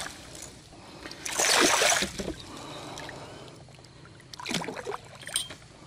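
A peacock bass splashing and thrashing at the surface as it is lifted out on a lip grip, loudest about a second in, then quieter water sounds and a few light clicks near the end.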